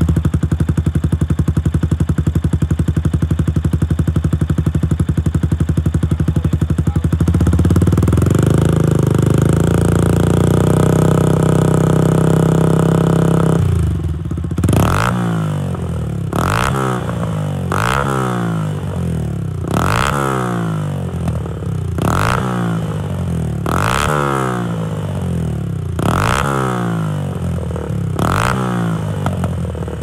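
Yamaha YZF-R125's single-cylinder four-stroke engine running through a Scorpion exhaust with the dB killer removed. It holds steady revs, steps up a little higher about seven seconds in and holds again, then from about halfway through is blipped sharply about every two seconds, the revs falling back after each blip.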